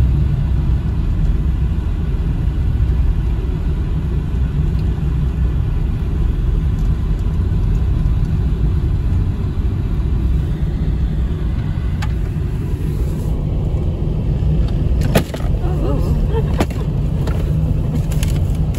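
Car driving, heard from inside the cabin: a steady low rumble of road and engine noise. A few sharp clicks and knocks come in the last few seconds.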